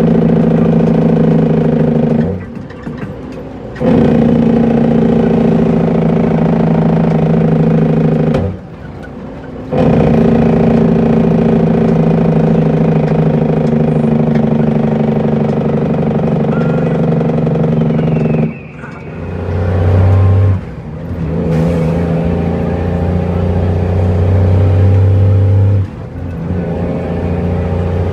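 Cummins N14 diesel engine of an International truck running under load, heard from inside the cab. The engine note drops out briefly four times, each break consistent with a gear change on the 13-speed transmission.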